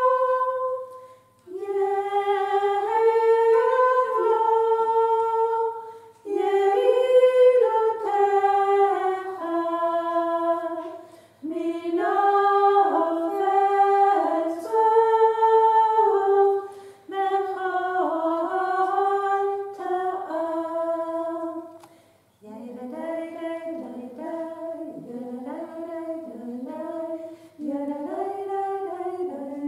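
Unaccompanied singing: a slow melody sung in phrases of a few seconds with short breaks between them, growing softer about two-thirds of the way through.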